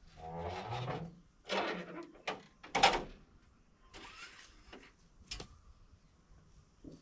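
Truck's hinged front grille panel being swung open and handled, with a creak in the first second, then knocks and rattles, the loudest a clank about three seconds in. The driver is opening it to check the engine oil.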